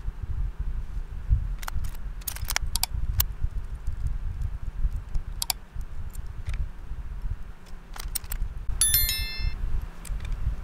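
Scattered sharp clicks and taps of small parts being handled while fitting a CNC router's Z-axis carriage, over a steady low rumble. About nine seconds in comes a short bright bell chime, the sound effect of a subscribe-reminder bell animation.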